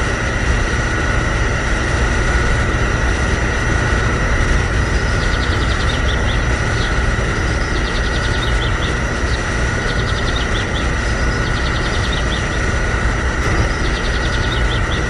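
Small pump motor of a handmade mini fuel pump running steadily while it fills a model tractor's tank through the hose: a constant hum with a steady whine, and faint runs of clicking about once a second in the middle.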